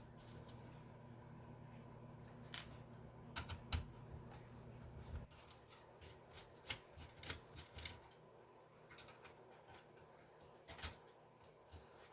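Faint, scattered light clicks and taps of small screws and parts being handled while a computer's case and board are taken apart. A low hum underneath stops about five seconds in.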